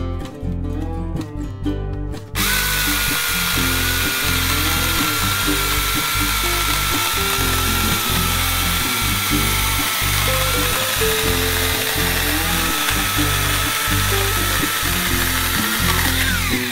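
Cordless 6-inch electric mini chainsaw cutting through a log of hard shimatoneriko (Formosan ash): the motor starts abruptly about two seconds in, runs steadily with a high whine under load, and winds down with a falling pitch near the end. Acoustic guitar background music plays throughout.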